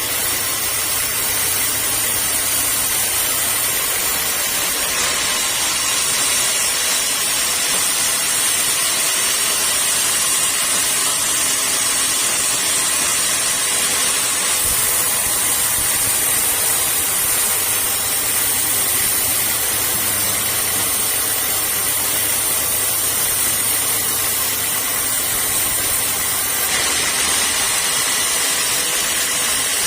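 Sawmill machinery running steadily: a constant loud hiss carrying a faint high tone, with small shifts in the high noise a few times.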